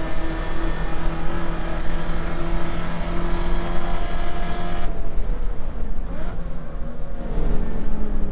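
Holden Commodore VK's 308 V8 heard from inside the cabin, running hard at high revs with a steady note. About five seconds in the note drops off suddenly as the throttle comes off, and a short sweep in pitch follows about a second later.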